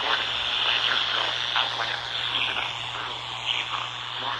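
Static hiss from a weather radio receiver on a weak NOAA Weather Radio signal, over a steady low hum, with faint garbled sounds breaking through the noise.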